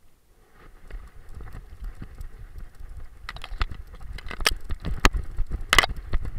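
Knocking and rubbing from a camera strapped to a running dog's back: rapid, irregular knocks and scrapes from the jolting mount and the dog's footfalls, starting about half a second in, with a few sharp clicks in the second half.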